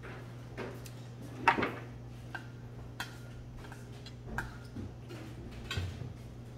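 Metal chopsticks clicking and scraping against a stainless steel bowl as food is stirred, in scattered irregular clinks, the loudest about a second and a half in. A steady low hum runs underneath.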